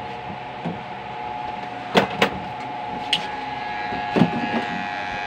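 Electric hair clipper running with a steady buzz, broken by a few sharp clicks and knocks: two close together about two seconds in, one near three seconds and one a little after four.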